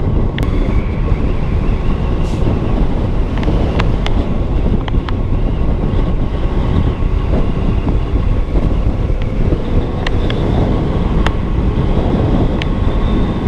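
Riding noise from a Suzuki AX 100, a small two-stroke single-cylinder motorcycle: steady wind rush over the microphone with the engine running underneath at a constant pace. A few short ticks come through now and then.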